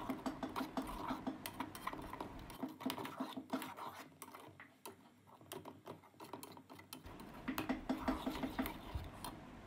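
A spoon scraping and clinking against a pan as a masala of onion, spices and yogurt is stir-fried. Busy quick scrapes and taps, quieter for a few seconds in the middle.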